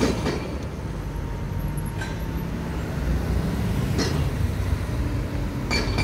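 Steady low rumble of heavy diesel engines and street traffic, with a couple of faint knocks. Near the end a high, rapidly pulsing beep starts.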